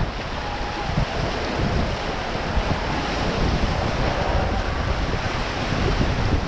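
Whitewater of a river rapid rushing around a raft, a dense steady roar, with wind buffeting the microphone in gusts.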